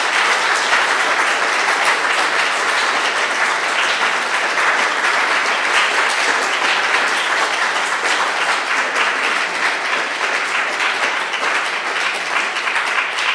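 Audience applauding: dense, steady clapping from a full hall that eases slightly near the end.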